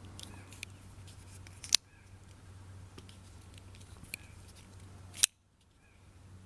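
Small metallic clicks of a flipper folding pocket knife being worked, with two sharp snaps about two seconds and five seconds in as the blade locks open or closes, over a faint low hum.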